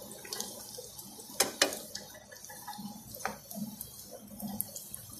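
Chicken balls deep-frying in hot oil in a wok: a steady sizzle with scattered small crackles. Two sharp clicks about a second and a half in, with a smaller one a little later, from the slotted spoon knocking against the pan.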